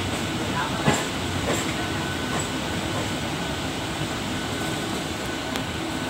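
Steady rumble of train wheels running on rails as freight wagons pass close alongside a moving local train, with a sharp clack about a second in.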